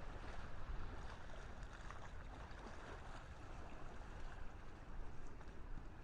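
Steady rushing noise of wind buffeting the microphone, with sea surf washing in the background.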